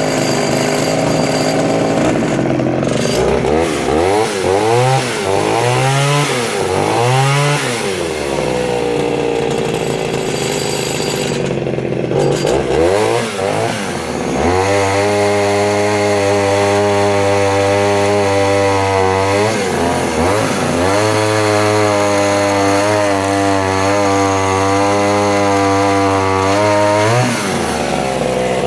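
Vintage Pioneer P20 51cc two-stroke chainsaw being revved up and down in quick blips, then held at high revs for several seconds at a time with brief drops in between while cutting small logs. The owner judges it to be running slightly rich.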